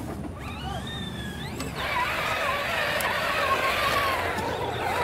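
Battery-powered ride-on toy carriage driving. A rising whine comes near the start, then steady running noise from its electric motor, gearbox and plastic wheels.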